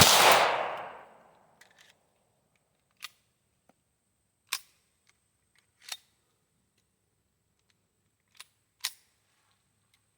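A pistol shot from a Ruger Mark IV .22 LR semi-auto, its echo dying away over about a second and a half. A few faint, sharp cracks follow, spaced one to two seconds apart.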